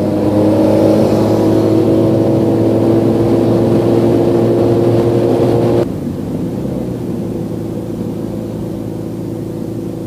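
Sport motorcycle engine pulling steadily at cruising revs while riding. About six seconds in the sound drops suddenly to a quieter, lower engine note.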